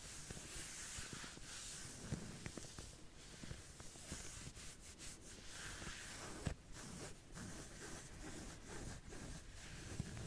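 Soft back-scratching: fingernails scratching in irregular strokes, with a sharper click about six and a half seconds in.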